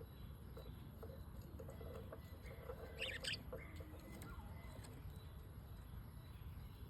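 Small pet parrots, kept as love birds, chirping. A short burst of high chirps comes about three seconds in, with scattered fainter chirps around it, over a low steady background rumble.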